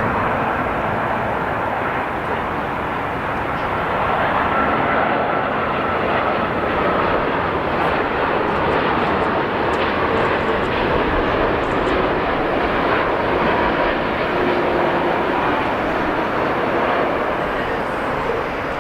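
Jet engines of a Boeing 787 Dreamliner landing: a steady rush of jet noise with faint whining tones that drift slightly in pitch, growing a little louder about four seconds in.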